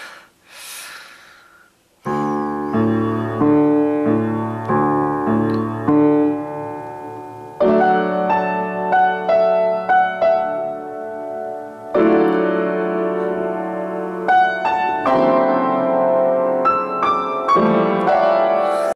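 Piano playing a passage of held chords, starting about two seconds in and changing every second or so, then cutting off suddenly at the end.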